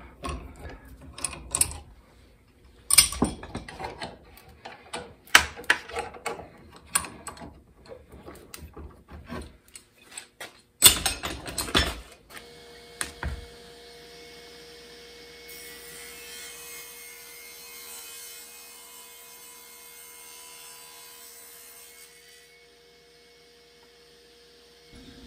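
Heavy steel C-clamps being unscrewed and lifted off a glued laminated handle blank, with irregular clanks and knocks as they come off and are set down. About halfway through this gives way to a table saw running with a steady hum as the laminated blank is ripped.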